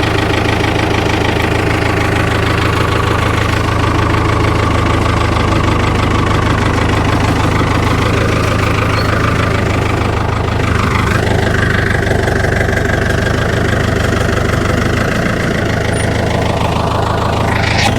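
Tractor engine running steadily, with a small shift in its note about halfway through.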